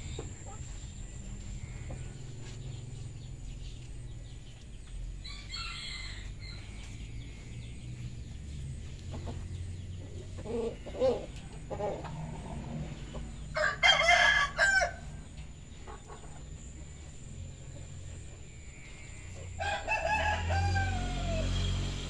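Domestic roosters crowing and clucking: a faint call about six seconds in, a few short low clucks a little before halfway, a loud crow about halfway, and a longer crow starting near the end.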